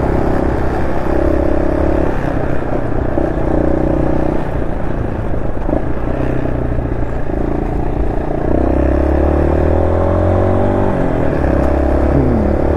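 Honda SL230's single-cylinder four-stroke engine running through an aftermarket muffler on a re-jetted carburettor (main jet 130, pilot jet 38) while the bike is ridden. Engine speed rises and falls in steps with the throttle, with a long climb in pitch about eight seconds in that drops off sharply near eleven seconds.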